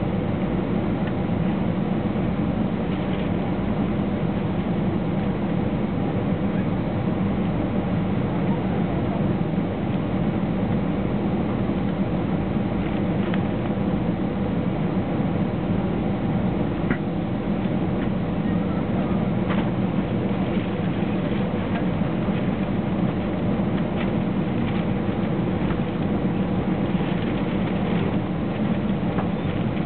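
Jet engines of a SkyEurope Boeing 737 running at taxi power: a steady hum with several held tones, its level unchanging throughout.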